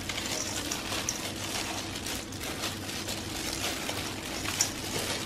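Gloved hands tossing a wet radish and beef salad in a stainless steel bowl: a steady wet rustling with small clicks and crinkles of the plastic gloves, over a low steady hum.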